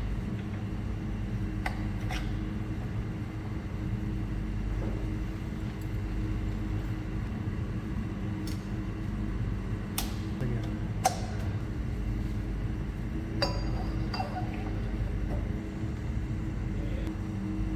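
Steady low hum with scattered sharp metallic clinks and taps, about seven or eight in all, the sound of metal tools and parts being handled.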